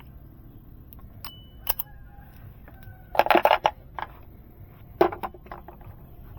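Sharp metallic clicks and clatter: a few single clicks, then a quick rattling run of clicks about three seconds in, and a couple more about five seconds in.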